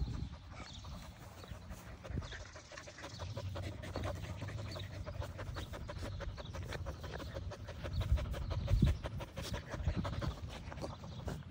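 Two young Australian Cattle Dogs panting and scuffling as they play-wrestle in grass, with many short clicks and rustles, a little louder about eight to nine seconds in.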